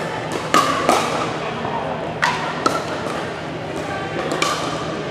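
Pickleball paddles striking a hard plastic ball: about five sharp pops, each with a short ringing tail, over a murmur of voices echoing in a large gym.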